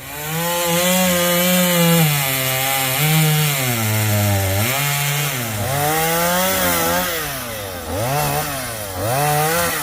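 Chainsaw cutting elm trees, its engine revving up and down over and over as it works through the wood.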